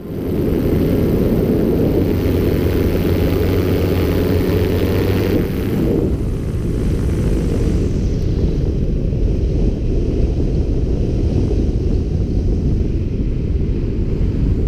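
Wind rushing over the camera microphone in paraglider flight, a loud steady rumble; its hiss thins out about eight seconds in as the glider comes down low over the sand.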